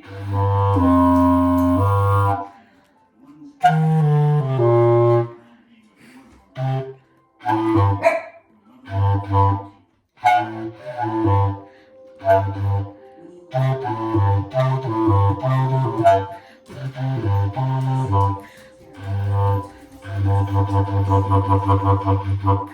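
A low-pitched wind instrument played solo, phrases of held and short notes broken by brief rests, ending in a run of quick repeated notes: one band part practised for a concert piece.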